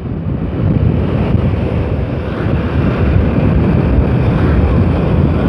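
Wind rushing over the microphone of a moving motorcycle, steady and loud, with low engine and road noise underneath.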